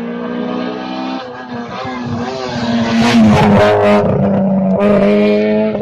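Rally car's engine at high revs as the car comes up close, its note holding steady with a step in pitch about a second in. A burst of crackling joins it about three seconds in, and it is loudest in the second half.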